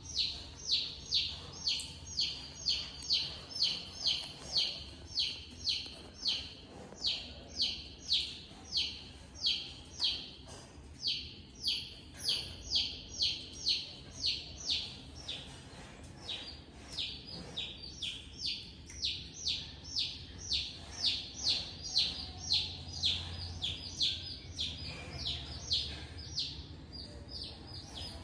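A bird chirping over and over in a steady rhythm, about two to three short high chirps a second, with a brief pause about halfway through.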